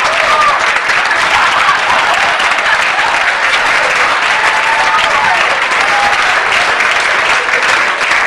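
Theatre audience applauding steadily, with a few shouts rising above the clapping.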